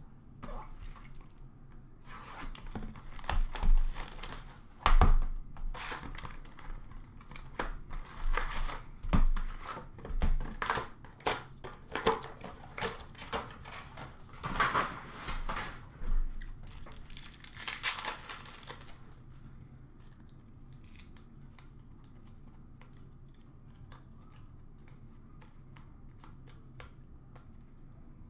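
Hockey card box packaging being torn open by hand: ripping and crinkling of cardboard and foil wrap with a few sharp knocks, running for about seventeen seconds, then falling away to faint light clicks.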